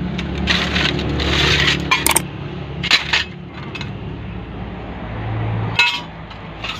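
Rummaging in a sack of scrap steel: the woven sacking rustles and the metal pieces clink and scrape, with a few sharp metallic clicks, as a flat steel plate is pulled out.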